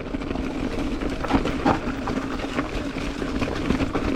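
Ibis Ripmo mountain bike rolling down a gravel fire road: a steady rush of tyre and wind noise with a constant low hum and many small clicks and rattles from the gravel and the bike.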